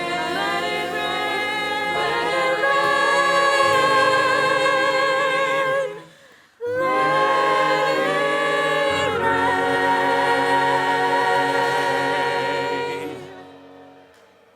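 Voices singing a slow song together, the held notes wavering with vibrato over steady low sustained tones. There is a short break about six seconds in, and the last chord fades out near the end.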